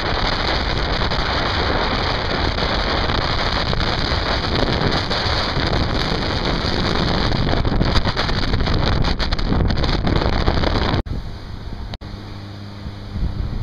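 Strong wind buffeting the microphone, a loud, even rushing. About eleven seconds in it cuts off suddenly, leaving a quieter low, steady hum.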